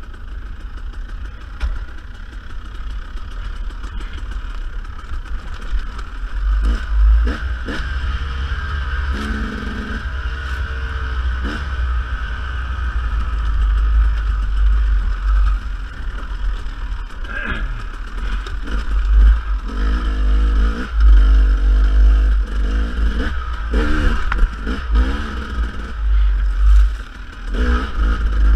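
Dirt bike riding on rough single track: the engine runs steadily and rises with the throttle in several stretches, over a heavy low rumble, with scattered knocks and clatter from the trail.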